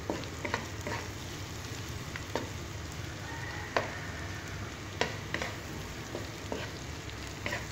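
Sliced white onion and garlic sizzling as they sauté in a nonstick wok, with a steady frying hiss. A wooden spatula stirs them, scraping and tapping against the pan in short sharp knocks every second or so.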